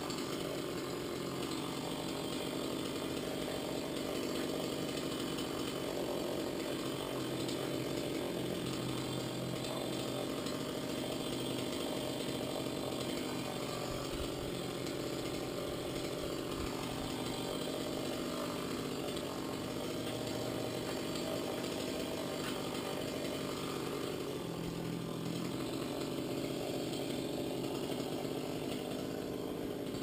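Chainsaw running steadily and without a break, its pitch shifting slightly now and then.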